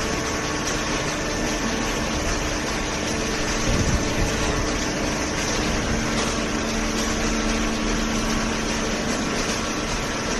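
Hydraulic baling press running: a steady machine noise with a constant hum from its motor and pump, and a brief low knock about four seconds in.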